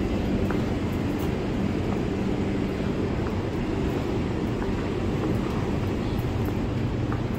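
Steady low mechanical rumble and hum, unchanging throughout.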